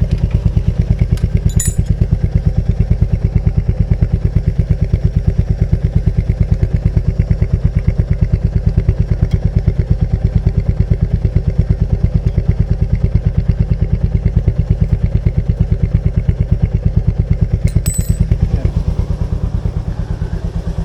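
Royal Enfield Meteor 350's single-cylinder engine idling with a steady, even thumping beat. There are two light metallic clicks, about a second and a half in and near the end, and the beat softens slightly in the last couple of seconds.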